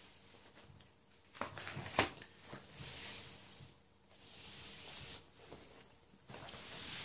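Plastic sleeve pages of a ring-bound card binder rustling as they are handled and turned, with two sharp clicks about a second and a half and two seconds in, then several soft swishes.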